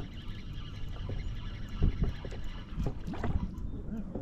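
Small waves slapping against the hull of a plastic fishing kayak in irregular low knocks, with wind blowing on the microphone.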